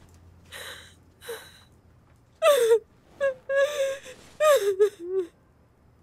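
A person crying: two sharp breaths drawn in, then from about two seconds in, high, wavering sobbing cries broken by catches of breath.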